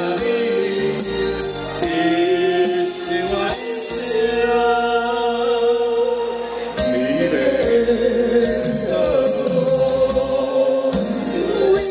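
A man and a woman singing a duet into handheld microphones over amplified backing music, with long held sung notes.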